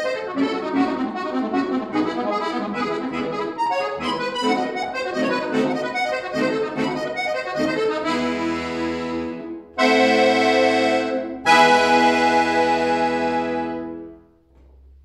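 Scandalli piano accordion played solo: about eight seconds of fast running notes, then full held chords, with two loud sustained chords from about ten seconds in, the last fading out near the end.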